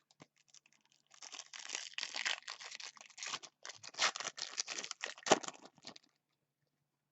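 Rustling and crinkling from trading cards and their foil pack wrapper being handled, a dense run of quick scratchy sounds that starts about a second in and stops about a second before the end.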